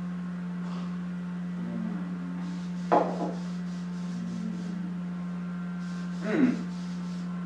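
A glass of smoothie set down with a knock on a wooden table about three seconds in, and a short vocal 'mm' from the drinker a little after six seconds, over a steady low hum.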